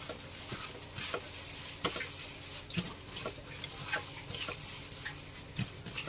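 Raw pork pieces being mixed by a plastic-gloved hand in a metal tray: irregular soft wet squelches and small clicks of meat against the tray.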